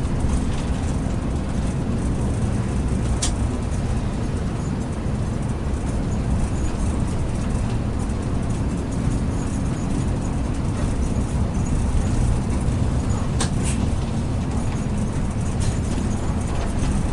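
Mercedes-Benz intercity coach on the move: a steady low rumble of engine and road noise, with a couple of brief sharp clicks, one a few seconds in and one about two-thirds through.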